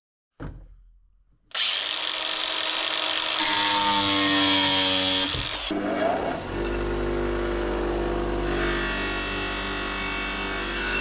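A cordless angle grinder starts about a second and a half in and cuts the stainless-steel drive wire, its pitch sinking under the load. About six seconds in, an industrial bench grinder spins up and runs with a steady hum. Near the end the wire is pressed to the wheel, adding a loud grinding hiss as a groove is ground into it.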